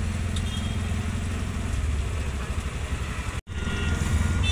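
Vehicle engine idling in road traffic, a steady low hum. It breaks off for an instant about three and a half seconds in, then runs on unchanged.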